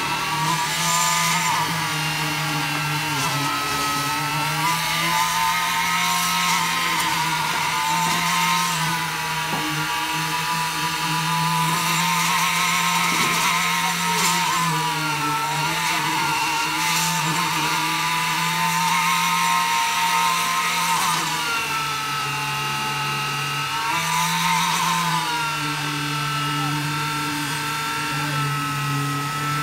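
An engine of the concrete-pouring machinery runs steadily, its pitch dipping briefly now and then as the load changes.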